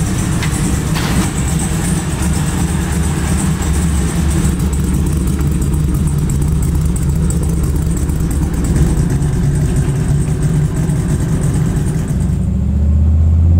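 LS V8 engine of a 1959 Chevy Apache pickup running through its 3-inch stainless Borla exhaust, a steady low engine note.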